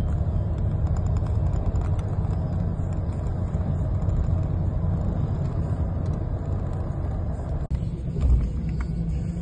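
Road noise of a moving car heard from inside: a steady low rumble of tyres and engine. Near the end comes one brief low thump, louder than the rest.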